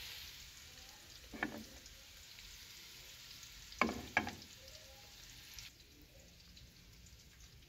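Onions and garlic frying faintly in oil in a steel kadai, a soft sizzle, with the metal slotted spoon knocking against the pan about a second and a half in and twice near four seconds.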